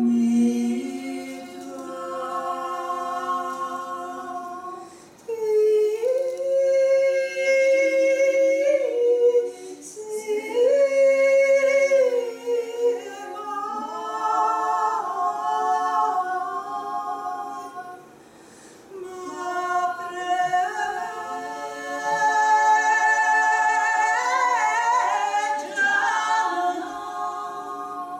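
Small women's choir singing a cappella in several parts, holding long chords in phrases that break off briefly about five, ten and eighteen seconds in.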